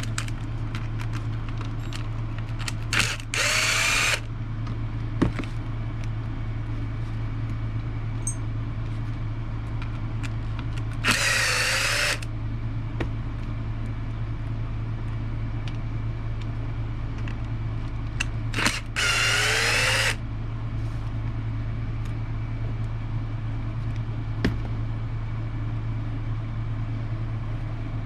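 Electric drill-driver run in three short bursts of about a second each, backing screws out of an RC truck's chassis during disassembly. A steady low hum and a few light clicks of parts and tools lie underneath.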